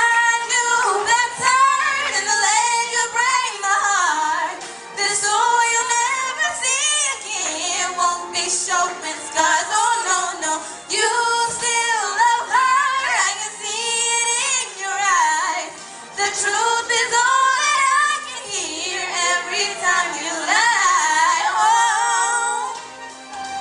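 Two young women singing a pop song duet into handheld microphones, amplified through a PA, over an instrumental backing track.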